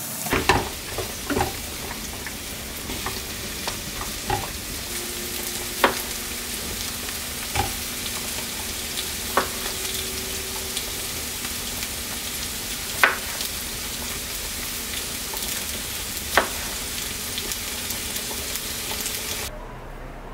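Onions, mushrooms and garlic sizzling steadily in a frying pan, with sharp knocks every few seconds from a knife meeting a wooden cutting board. The sizzling cuts off near the end.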